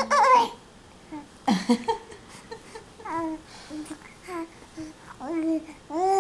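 Baby cooing and babbling in a run of short, high-pitched vocal sounds that rise and fall in pitch, with a louder squeal right at the start.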